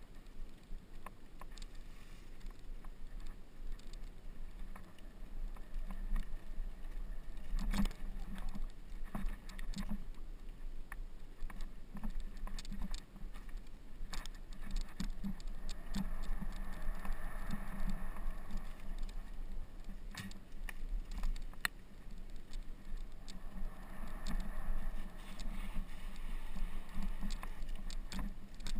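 Mountain bike descending a rough dirt forest trail: a steady rumble of tyres and frame on the ground with a continual scatter of rattles and knocks as the bike goes over bumps.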